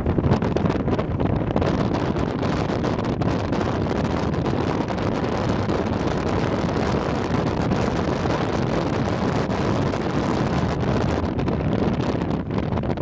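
Wind buffeting the microphone, a loud, steady rush strongest in the low end.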